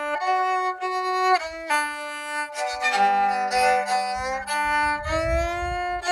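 Handmade rabeca, a Brazilian folk fiddle, bowed in a lively melody of short stepping notes, often two strings sounding together, with a lower note held under the tune from about halfway.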